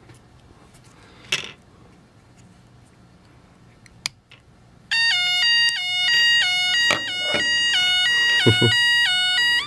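A small electronic device with a freshly resoldered wire plays a beeping electronic tune, starting about five seconds in after a few quiet handling clicks. The tune shows the repair works.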